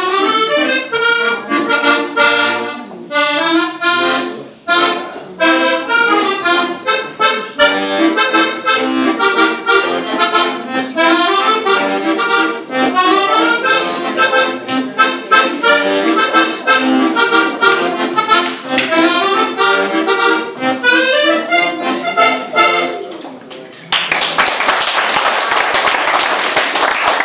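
Accordion playing a tune with rhythmic chords and a bass line; the music stops about 23 seconds in and audience applause takes over to the end.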